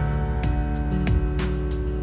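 Gentle background music, with new notes coming in about every half second.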